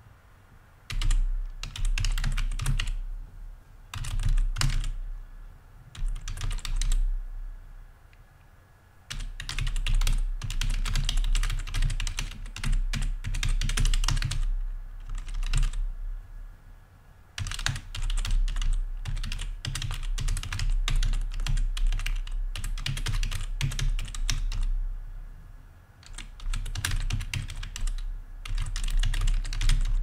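Fast typing on a computer keyboard, rapid key clicks in runs of one to several seconds broken by short pauses. The longest runs come in the middle and second half.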